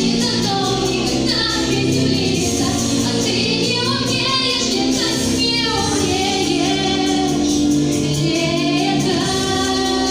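A woman singing a song live, with sustained melodic lines over instrumental accompaniment.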